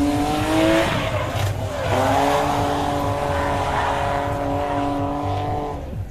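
Drift car's engine held at high revs. Its pitch climbs, drops sharply about two seconds in as the driver lifts, then holds steady, over a haze of tyre noise from the slide. It cuts off suddenly near the end.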